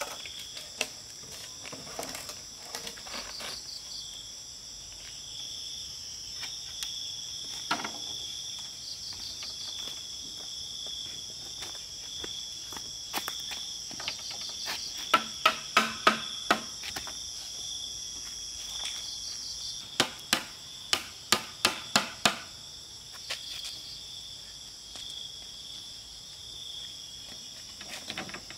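Hammer blows on a bamboo frame being assembled: two quick runs of about six strikes each, a few seconds apart around the middle, with a few single knocks elsewhere. A steady high insect chorus underneath throughout.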